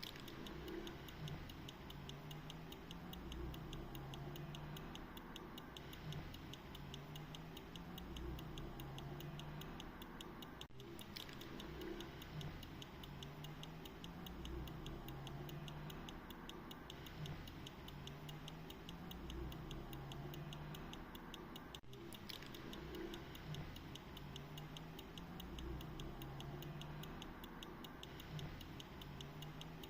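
Verge fusee pocket watch ticking: a rapid, even run of light ticks, with a soft low pulsing underneath.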